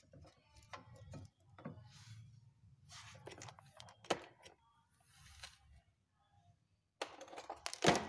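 Handling noises of hands working refrigerator power-cable wires: scattered rustles and small clicks, a sharp click about four seconds in, and a louder clatter of clicks near the end.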